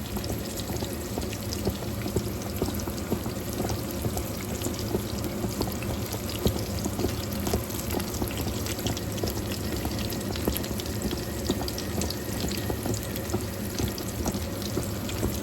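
Steady hissing kitchen noise, dotted with many small crackles and clicks.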